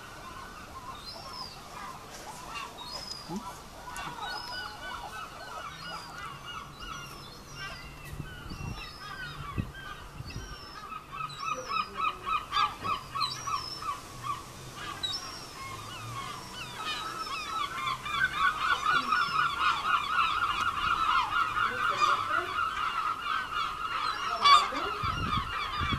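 Herring gulls calling: a long run of rapid, repeated notes that gets louder about halfway through, with short higher whistled notes over it.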